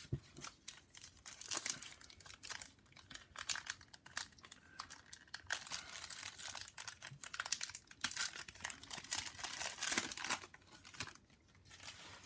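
A foil trading-card pack wrapper being torn open and crinkled by hand: a run of crackling rustles, thickest in the middle, that stops about a second before the end.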